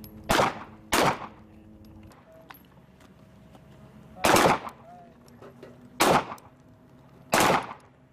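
Beretta M9 9 mm pistols firing single shots: five sharp shots, two in quick succession near the start, then three more spaced a second or two apart.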